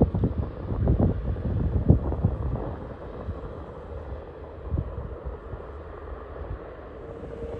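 Wind gusting against the microphone over the steady distant rumble of a Boeing 787-8's jet engines as it taxis. The buffeting is strongest in the first few seconds, and a steady tone rises out of the rumble near the end.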